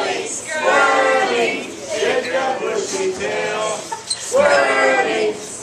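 People's voices shouting in long, drawn-out calls, loosely chant- or song-like.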